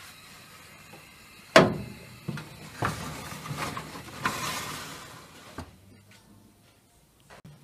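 Oven door opened with a loud metallic clang about a second and a half in. A loaded metal baking tray then clatters and scrapes as it is slid onto the oven rack, ending with a last knock.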